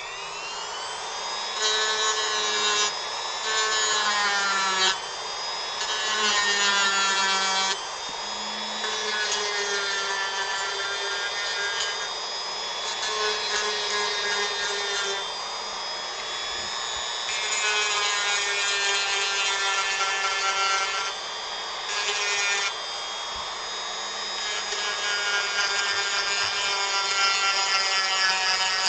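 Dremel rotary tool spinning up, then running at high speed while carving wood. Its whine sags in pitch and recovers again and again as the bit bites into the wood and lifts off.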